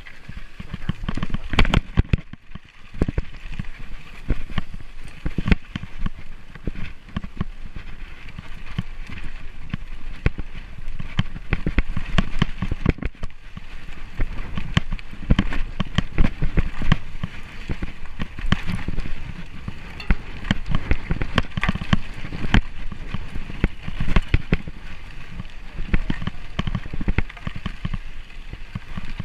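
Drop-bar bicycle clattering over a rough, muddy dirt track: a constant stream of irregular knocks and rattles from the bumpy ground, over a steady low rumble.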